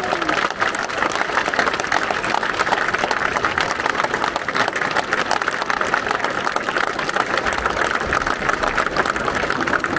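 A large crowd clapping: dense, steady applause that keeps going without a break.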